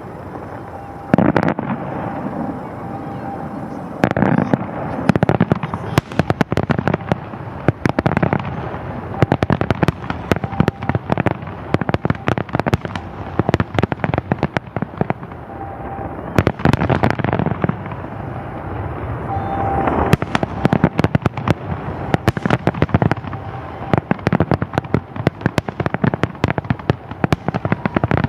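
Aerial fireworks shells bursting in rapid succession, heavy booms echoing back off the surrounding mountains, with dense crackling between the bigger bursts.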